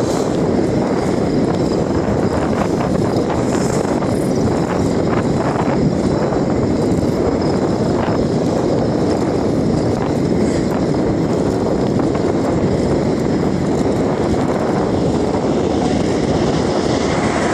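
Steady, loud wind rush over the microphone, with the rolling noise of an electric bicycle riding at about 36 km/h on asphalt.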